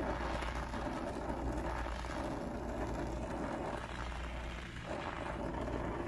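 Oxyacetylene torch flame hissing steadily while it heats a copper pipe joint for brazing.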